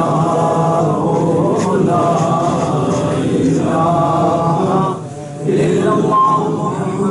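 A man's voice chanting in long, held melodic phrases, breaking off briefly about five seconds in.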